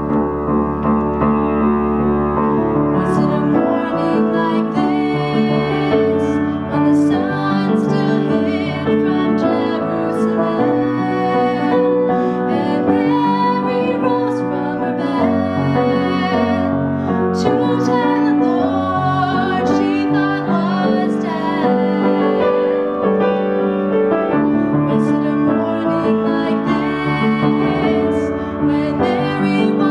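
Solo female voice singing a slow song with upright piano accompaniment. The piano plays alone at first, and the voice comes in about three seconds in.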